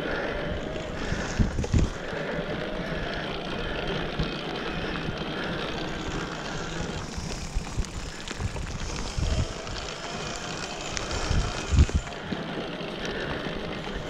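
Mountain bike rolling over a rough, wet dirt trail: steady tyre and drivetrain noise with a few low thumps as the bike hits bumps.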